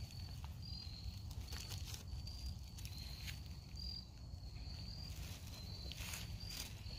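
Insects singing in a steady, high, continuous trill over a low rumble, with a few soft clicks about a second and a half in and again near the end.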